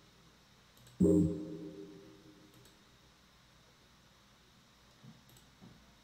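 A single electronic tone from the computer sounds sharply about a second in and fades away over a couple of seconds. A few faint clicks follow.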